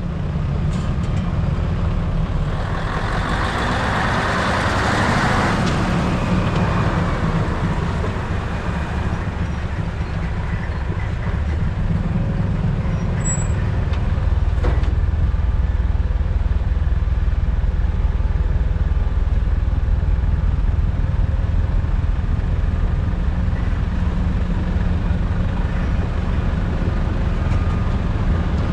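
Diesel engine of heavy snow-removal machinery running steadily under load. A harsh scraping burst from about two to six seconds in, fading by about nine, is a blade shaving packed snow and ice off the road surface. There is a single sharp click about halfway through.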